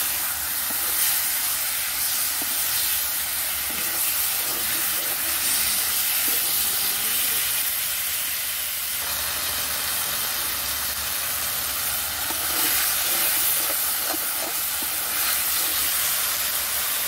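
Catfish pieces sizzling as they fry in oil and spice paste in an iron karahi, a steady hiss, with a spatula stirring them now and then.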